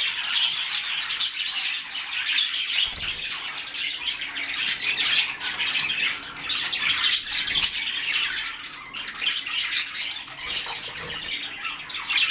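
A cage of budgerigars chattering: a dense, unbroken mix of warbles, chirps and squawks from several birds at once.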